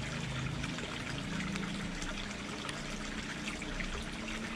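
Steady trickle of running water, with many small splashes and drips.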